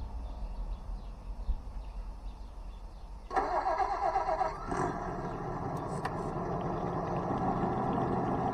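GT Power engine sound unit in an RC model boat playing a simulated engine start about three seconds in, a short warbling crank and catch. It then settles into a steady running engine sound that slowly grows louder.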